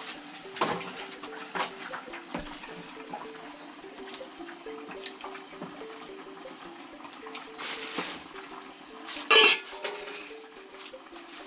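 Clinks and knocks of an aluminium saucepan as cold water is poured into it from a plastic jerrycan, with short rushes of noise about eight and nine seconds in.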